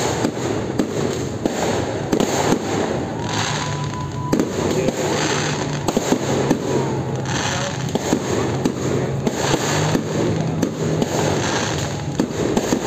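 Fireworks display going off in a continuous run of bangs and crackles, one burst after another.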